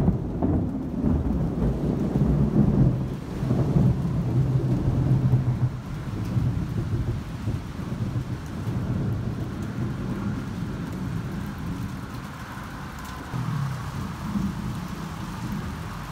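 Thunder from a nearby lightning strike: a sudden loud crack right at the start, then heavy rolling rumble for about six seconds that slowly dies away, swelling once more near the end.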